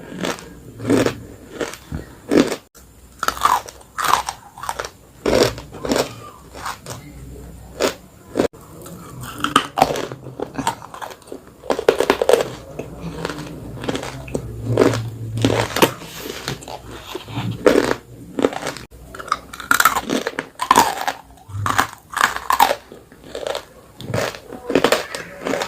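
Someone biting and chewing dry edible clay close to the microphone: a long run of crisp crunches at irregular intervals, now single, now in quick clusters, with wet chewing between them.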